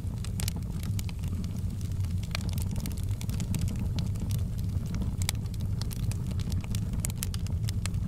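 Wood logs burning in a fireplace: a steady low rumble of flame with frequent sharp crackles and pops at irregular intervals.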